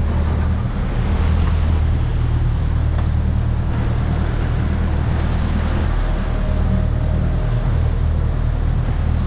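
Sportfishing boat's engines running steadily at trolling speed, a low drone, over the rushing hiss of the wake and wind on the microphone.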